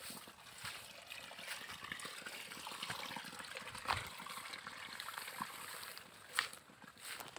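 Faint steady hiss with a few light footsteps and rustles on dry ground.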